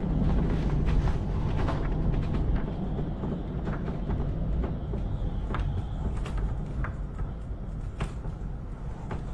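Hurricane-force wind blowing hard and buffeting the microphone, with driving rain and scattered sharp taps through it. It eases a little over the last few seconds.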